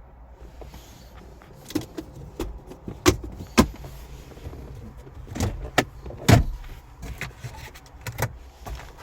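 Irregular sharp clicks and knocks in a car's cabin, about a dozen of them, over a steady low rumble. The loudest come about three seconds in, at about three and a half seconds and just past six seconds.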